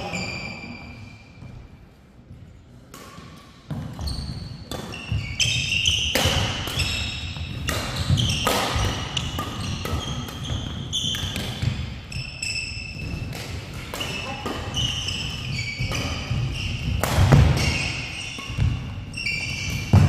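Doubles badminton rally on an indoor court: rackets smack the shuttlecock every half second to second, and sneakers squeak on the court mat. There is a short lull about a second in, and a new rally starts after about three and a half seconds.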